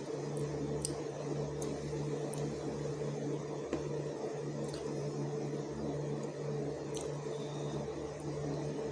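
A steady low hum from a running appliance, with a few faint light clicks scattered through it.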